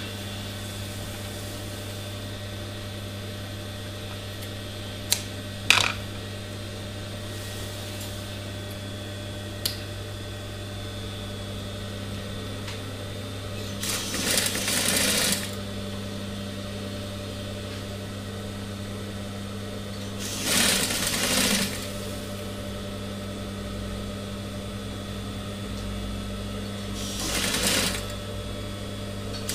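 Industrial sewing machine's motor humming steadily, with three short runs of stitching through fleece, each a second or two long: one about halfway in, one about two-thirds in, and one near the end. A few sharp clicks come in the first ten seconds.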